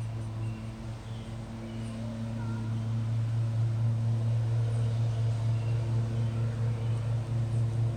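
A steady low hum with a few faint, brief high chirps scattered through it.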